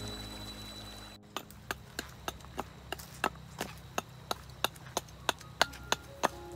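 Flowing stream water, then a hatchet chopping along a weathered wooden plank in quick, even strokes, about three knocks a second, as the plank is hewn into a cutting board.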